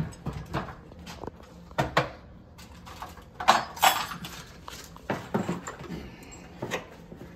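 Irregular knocks and clanks of metal storm-door hardware and tools being handled and set down on a step ladder, the loudest about halfway through.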